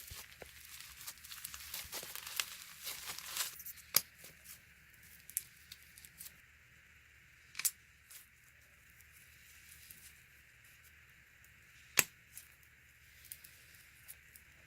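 Slime with sponge pieces mixed in being squished and crushed by hand, giving soft crackling and tearing sounds. The crackling is dense for the first few seconds, then thins out, with a few sharp snaps spread through it.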